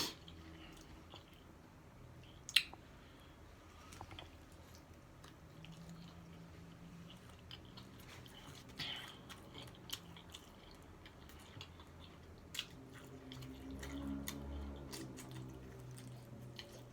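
A person chewing a taco close to the microphone: soft, wet mouth sounds with scattered small clicks and crunches, one sharper click about two and a half seconds in.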